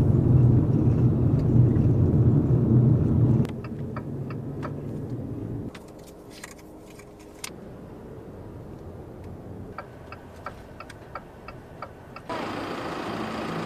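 Road and engine noise inside a moving car's cabin, a steady low rumble that is loudest for the first few seconds and then drops sharply at cuts between shots. Quieter stretches carry light clicks and, near the end, a run of evenly spaced ticks.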